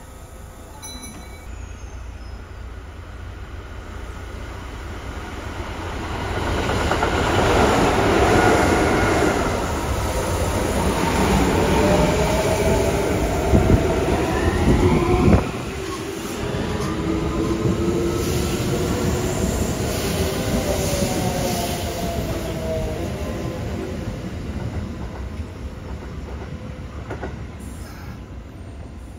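Electric commuter trains running through the station close by. The rumble of wheels on rail builds to a peak about eight seconds in, with high whines that glide up and then fall away and some wheel squeal. Around halfway a sharp knock comes and the noise suddenly drops.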